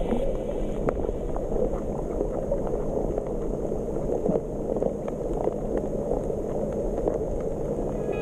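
Muffled underwater sound picked up by a GoPro HERO Session held below the surface: a steady wash of water noise with faint scattered clicks.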